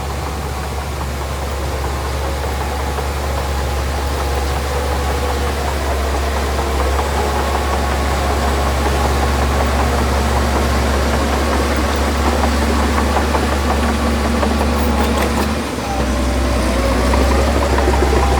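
Heavy earthmoving machine's diesel engine running steadily with a deep rumble, dipping briefly near the end before picking up again.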